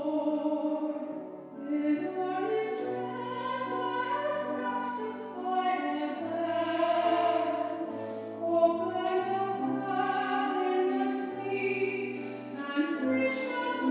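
A sacred song: voices singing sustained melodic lines over instrumental accompaniment.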